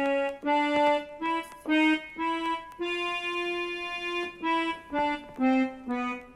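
Electronic keyboard sounding single sustained notes one after another in a slow line that climbs and falls, with one longer note held about three seconds in.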